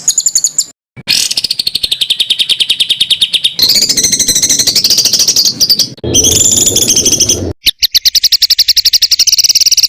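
Recorded songbird calls from a bird-training compilation: rapid, harsh strings of high repeated notes, spliced into several segments that cut off and change abruptly every few seconds.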